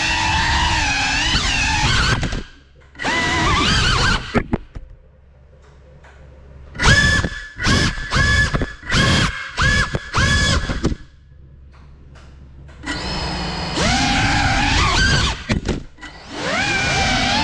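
FPV drone's electric motors and propellers whining, the pitch rising and falling with the throttle. The whine cuts out three times, and in the middle it comes as a quick row of short throttle blips.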